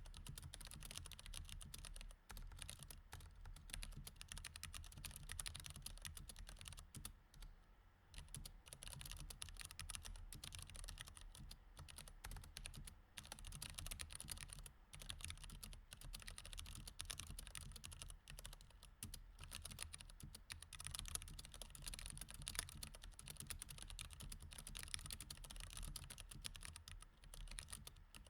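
Quiet, continuous fast typing on a mechanical keyboard with Cherry MX Red switches: dense, rapid key clacks, with a short pause about eight seconds in, over a faint low hum.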